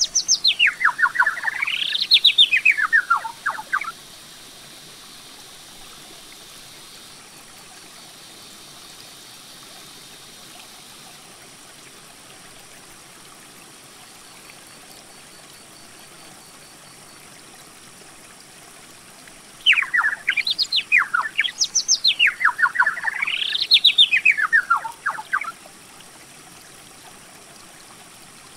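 A songbird singing a phrase of quick rising and falling whistled notes that lasts a few seconds, once at the start and again about twenty seconds in, over a steady faint hiss.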